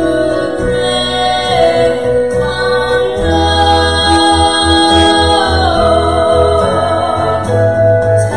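Two women singing a gospel song together over instrumental accompaniment, holding long notes.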